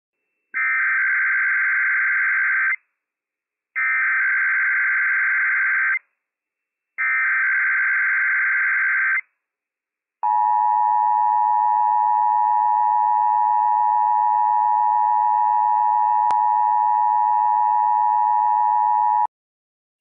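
Emergency Alert System SAME header: three buzzing bursts of digital data, each a little over two seconds and about a second apart. Then the steady two-tone EAS attention signal sounds for about nine seconds and cuts off sharply. Together they open a Required Monthly Test alert broadcast over NOAA Weather Radio.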